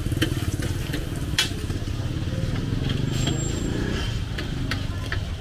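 Street traffic with a motor engine running close by, under scattered sharp clicks.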